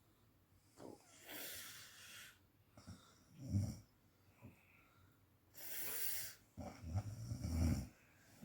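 A person snoring: a hissing breath followed by a low, rattling snore, twice, the second snore longer and louder.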